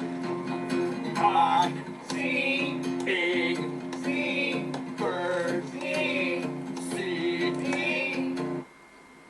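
Strummed acoustic guitar music with a repeating melody over held notes, in a Spanish style. It cuts off abruptly shortly before the end.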